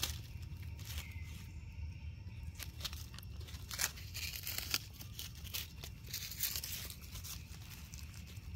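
Dry fallen leaves and twigs crackling and rustling in scattered crunches as monkeys shift about on the leaf litter, busiest in the middle.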